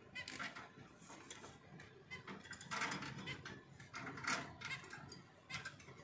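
Cockatiel clambering about a wire birdcage: irregular rattling and scraping as its claws and beak catch on the metal bars.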